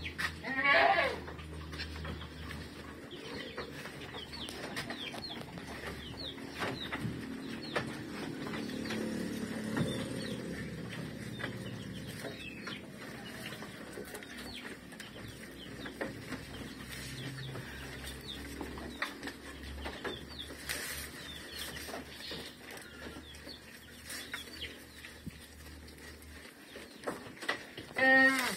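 Goats bleating, once about a second in and once louder with a quaver near the end, and in between the rustle of fresh leafy forage and goats munching it.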